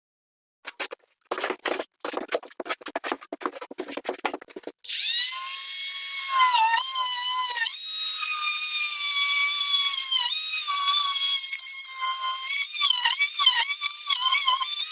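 Power tool cutting out the base of a vanity cabinet. It starts with a quick run of sharp rasping strokes, several a second. About five seconds in, a motor whine takes over and dips in pitch each time it bites.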